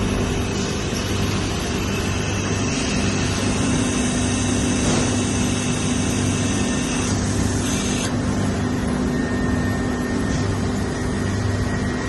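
Industrial laminating machine running: a steady mechanical hum with several constant tones under a broad whir. A high tone drops out for about a second near the middle.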